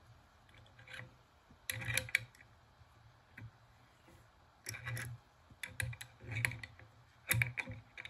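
Steel adjustable wrench clicking and clinking against a bolt head as it is fitted on, turned and repositioned, in about half a dozen short clusters of light metal clicks.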